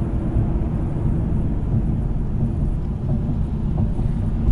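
Tyre and road rumble inside a Toyota Celsior's cabin: new Bridgestone Regno GR-XII tyres rolling over coarse red tunnel paving, heard as a steady low rumble.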